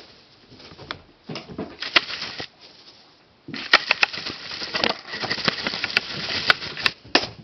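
Kittens scrabbling and scratching at play: bursts of scratchy rustling with sharp clicks, a short stretch about a second in and a longer, busier one from about three and a half seconds in.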